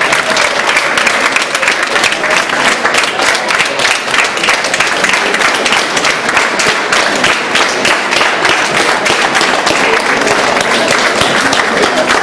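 Crowd applauding: many hands clapping steadily and densely.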